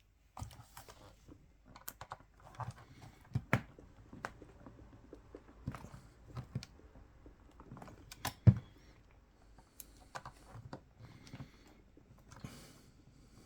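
Irregular clicks, taps and light rattles of a screwdriver and small parts being handled on a bench during a camera teardown, with one louder knock about eight and a half seconds in.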